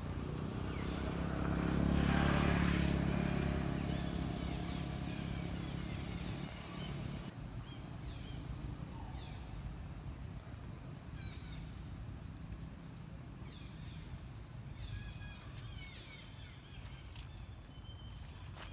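A motor vehicle engine passing by, loudest about two seconds in and slowly fading away, followed by scattered short bird chirps.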